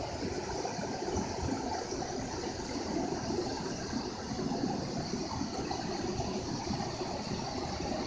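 River water rushing steadily.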